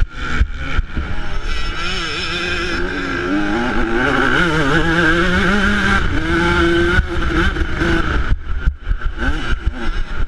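Yamaha YZ125 two-stroke single-cylinder engine revving up and down as the throttle is worked, under wind rumble on the bike-mounted camera's microphone. The revs drop briefly about eight seconds in before picking up again.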